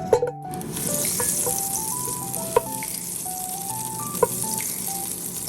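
Butter sizzling in a hot pan of olive oil. The sizzle starts about half a second in after a sharp knock, with two short sharp clicks later on. Background music with a stepping melody plays over it.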